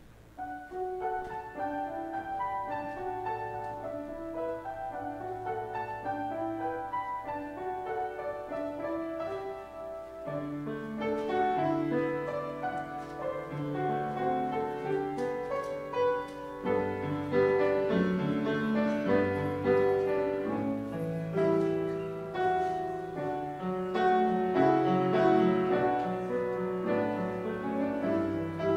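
Piano postlude closing the service: slow, classical-style piece of held chords and melody, growing fuller and louder with deeper bass notes from about eleven seconds in.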